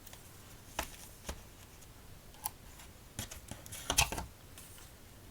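Playing-card boxes being handled and set down: a few scattered soft taps and clicks, the loudest about four seconds in.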